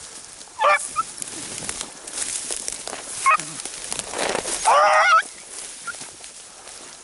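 Beagles baying on a rabbit's scent: a short cry just under a second in, another a little past three seconds, then a longer, wavering bay around five seconds. The baying means the hounds are running a rabbit they have jumped.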